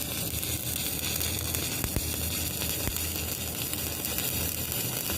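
Stick (arc) welding: the electrode's arc crackling and sizzling steadily, over a low hum.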